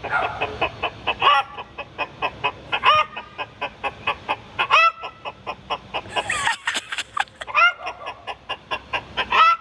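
Imitation hen clucking: rapid short clucks, about four or five a second, with a louder drawn-out rising cluck every couple of seconds, made as a fake chicken call to fool dogs.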